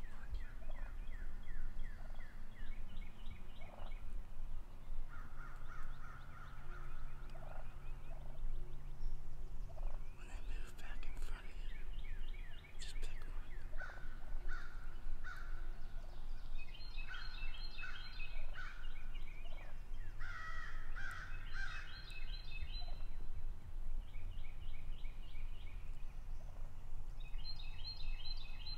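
Eastern wild turkeys gobbling again and again, several rattling gobbles close together and overlapping, with series of lower repeated notes in between.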